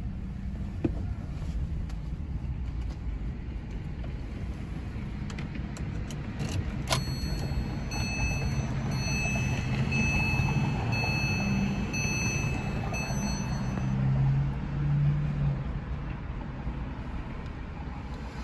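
Low, steady rumble of the 2005 Porsche 911 Carrera S's flat-six heard inside the cabin. About seven seconds in there is a sharp click, then a high electronic chime sounds on and off for about six seconds, with the rumble swelling briefly near the end.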